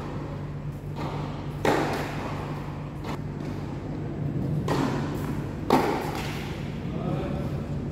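Tennis ball struck by rackets in a doubles rally: two sharp hits about four seconds apart, with fainter knocks between them, over a steady low hum.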